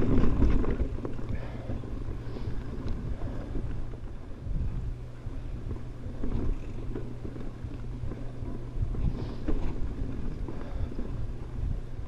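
Mountain bike rolling along a dirt singletrack, with a steady low rumble of wind on the microphone and tyre noise, and scattered rattles and knocks from the bike going over bumps.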